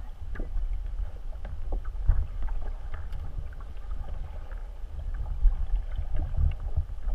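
Underwater water noise picked up by a camera held beneath the boat: a steady low rumble with scattered small clicks and knocks, while a humpback whale swims close under the hull.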